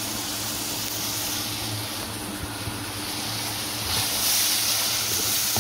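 Sliced onions sizzling in hot oil in a kadai, stirred with a spatula; the sizzle grows louder about four seconds in. A steady low hum runs underneath.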